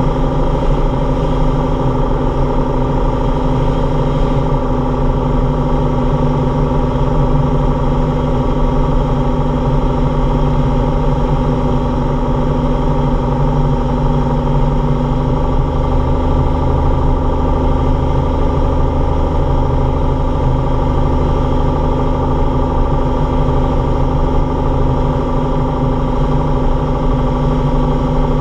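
Single-engine light aircraft's piston engine and propeller droning steadily, heard from inside the cockpit on final approach. The pitch sags slightly near the end as power comes back over the runway.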